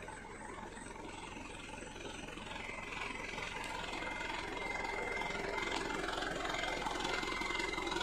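Diesel engine of a palm-oil tanker truck running at idle, growing steadily louder from about two seconds in, with a thin steady whine above the rumble.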